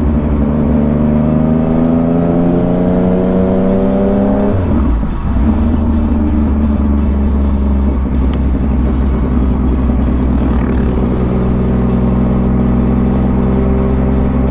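Yamaha MT-09's three-cylinder engine pulling under acceleration, its pitch rising for about four seconds, then dropping sharply at a gear change before running steadily again and slowly climbing near the end.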